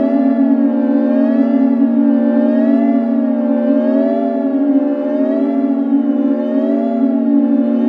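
Layered microtonal synthesizer drones from the DIN Is Noise software synth: a steady low tone under several higher tones that waver slowly up and down in pitch, roughly once every second and a half.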